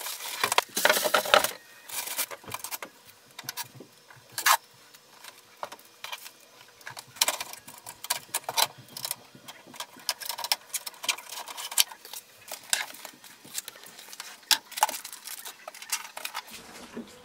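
Unpacking noises: a plastic bag crinkling and polystyrene packing creaking as a printer is pulled out, loudest in the first couple of seconds, then an irregular string of clicks, knocks and rustles as its plastic paper tray, cables and papers are handled.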